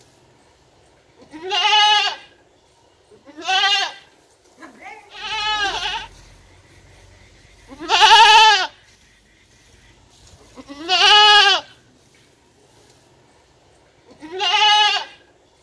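Young goat bleating six times, one loud call every two to three seconds. Each bleat is under a second long, rising and then falling in pitch.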